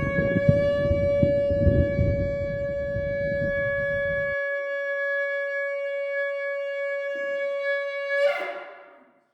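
Shofar blown in one long, steady blast that ends with a brief upward swell. A low rumble underneath cuts off suddenly about four seconds in.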